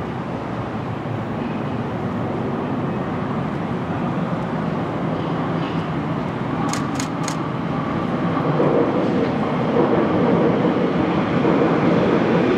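Two electric trains running past, a Docklands Light Railway train and an Elizabeth line Class 345, with steady running noise growing louder from about eight seconds in as they draw near. A few sharp clicks come about seven seconds in.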